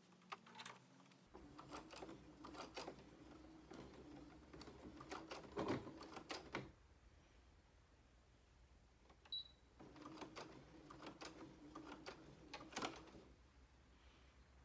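Heavy canvas being sewn: two runs of rapid clicking and knocking with a faint hum under them, the first about six seconds long and the second about three and a half.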